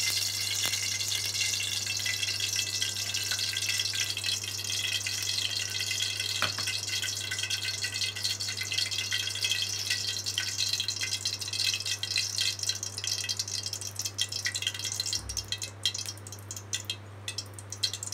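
Cooking oil sizzling and crackling as it heats in a hot aluminium kadai, a dense crackle that thins out to scattered pops towards the end.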